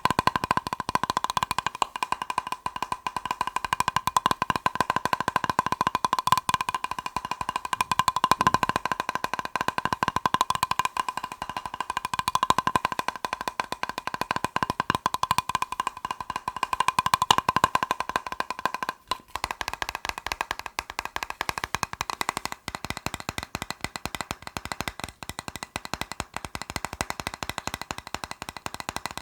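Fast tapping on a plastic box: a dense, unbroken run of quick taps carrying a steady ringing tone from the box. About 19 seconds in there is a brief break, and then the tapping goes on with a higher, thinner tone.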